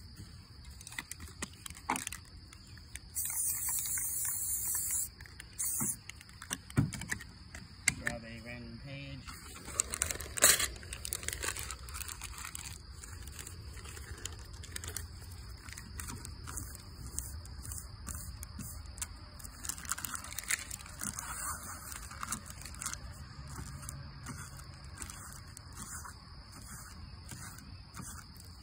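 Aerosol spray-paint can hissing in a burst of about two seconds, then a shorter burst. After that, crinkling and scraping as a crumpled sheet is handled and pressed onto the painted paper. A steady high insect drone runs underneath.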